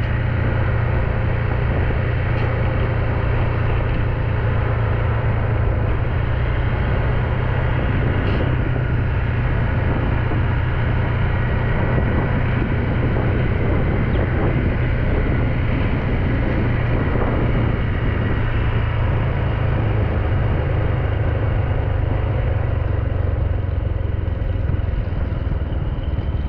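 Motorbike being ridden along a road: steady engine and road noise under a heavy continuous low rumble.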